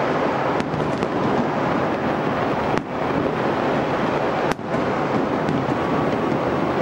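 Fireworks and firecrackers going off across a city: a steady, dense din of crackling and popping, with four sharper bangs standing out, two of them close together near the start.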